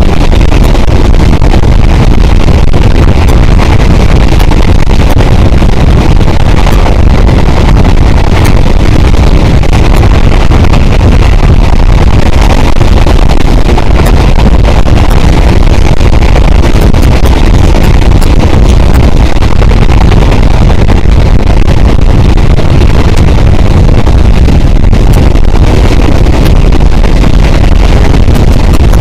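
Steady, loud wind rush on a microphone mounted outside a passenger train coach running at speed, mixed with the rumble of the train's wheels on the track.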